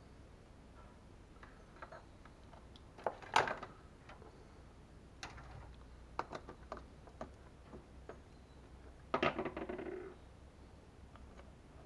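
Scattered small clicks and rattles of wire leads and crocodile clips being handled and connected, with two louder bursts of clatter, one about three seconds in and one near nine seconds in.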